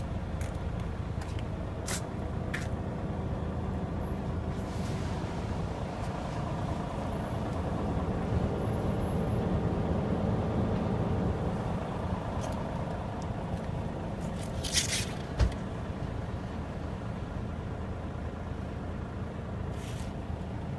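Kia Parkway coach's 410 hp diesel engine idling steadily. About fifteen seconds in there is a short hiss, with a single sharp knock straight after it.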